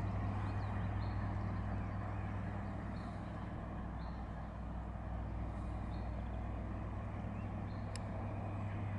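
A workboat's engine running steadily with a low hum as the boat tows a dredging plough.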